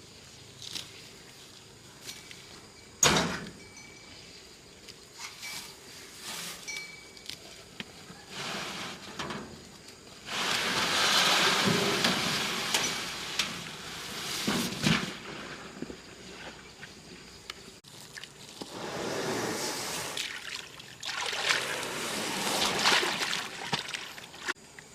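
Water pouring and sloshing in two longer spells, with a sharp knock about three seconds in and a few lighter knocks.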